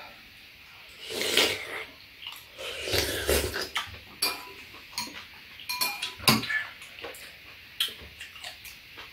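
Metal spoons and chopsticks clinking and scraping against ceramic bowls during a meal, in many short, sharp clinks with the loudest about six seconds in. Two longer, rougher noises come about a second in and around three seconds.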